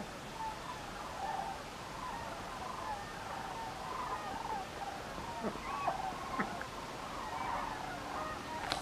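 A flock of sandhill cranes calling overhead: many overlapping rolling, rattling calls from a distance, with a few louder short sounds about two thirds of the way through.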